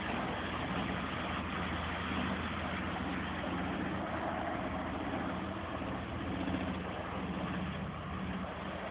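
Articulated lorry's diesel engine running steadily at low revs as it pushes slowly through deep floodwater, with the wash of water around its wheels; it fades slightly near the end as the lorry moves away.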